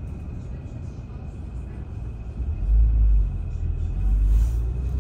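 Low engine and road rumble of a moving city bus heard from inside the cabin, swelling louder twice: about halfway through and again near the end.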